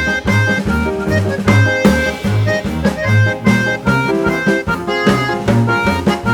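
Background music with a steady beat: a repeating bass line under pitched instrument notes.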